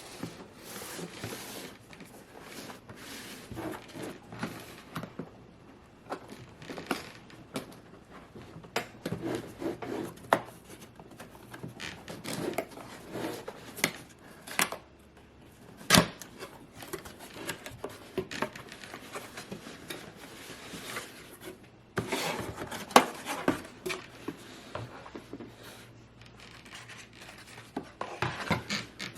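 Hands handling and fitting computer parts: rustling, scraping and small plastic and metal clicks. The sharpest clicks come about halfway through and again about three-quarters of the way in.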